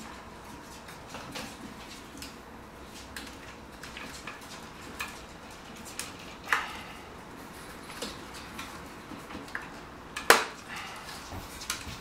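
Hard plastic parts of a 1/6-scale ED-209 figure clicking and knocking as its cannon arms are handled and fitted onto the body. There are scattered light clicks, a sharper one about six and a half seconds in, and the loudest snap about ten seconds in.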